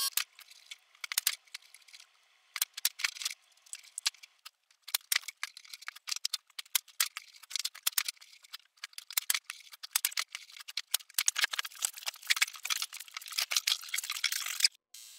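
Light clicks, taps and rattles of plywood rings and bar clamps being handled on a workbench, thickening into dense rapid clicking in the last few seconds.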